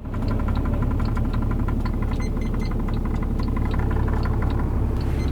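Ford Cargo 1722 truck's diesel engine idling steadily, with a regular light ticking over the low rumble.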